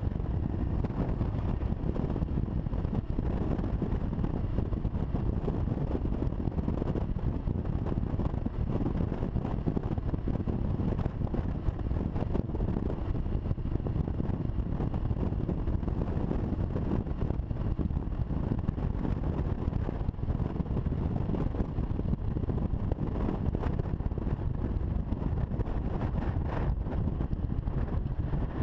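Kawasaki KLR650 single-cylinder motorcycle riding at road speed, its engine and wind making a steady low rumble, with wind buffeting a helmet-mounted camera's microphone.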